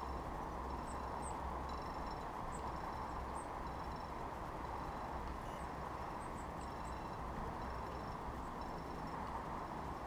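Steady background hum of distant city traffic, with small birds chirping faintly: short high notes repeated every second or so.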